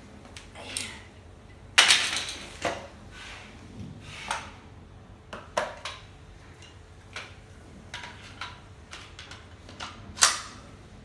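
Plastic and metal parts of a Uonibaby children's convertible tricycle being handled and fitted together: scattered clicks and knocks, with a loud clatter about two seconds in and another sharp knock near the end.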